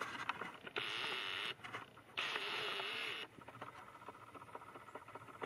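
Two short whirring bursts from a small motor inside the camcorder, each under a second and cutting off sharply, with a wavering whine and faint clicks around them.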